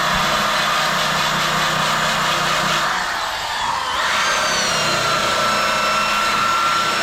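Angle grinder with a wire brush or flap disc running against sheet steel, stripping paint and seam sealer down to bare metal around a hole before welding. About three seconds in the grinding eases briefly, then the motor's whine rises and holds steady.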